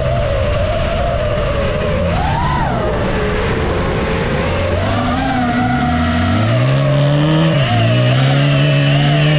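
Autocross race car engines revving hard under acceleration, the pitch climbing and then dropping suddenly about three quarters of the way through as a gear is changed, then climbing again. A steady higher whine wavers above the engines throughout.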